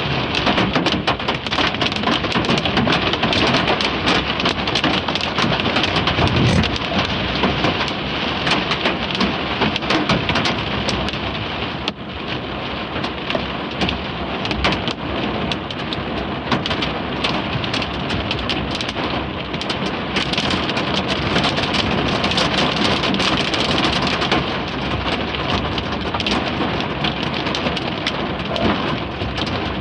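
Hail and heavy rain pelting down in a severe thunderstorm: a dense, unbroken clatter of hailstones striking, over the hiss of the rain.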